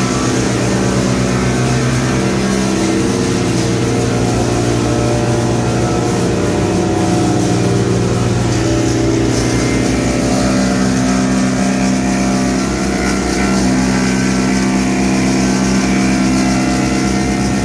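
A 225 wood chipper with hydraulic feed and a 30 hp electric motor, running steadily while chipping tea tree. The low hum shifts slightly in pitch now and then as the load changes.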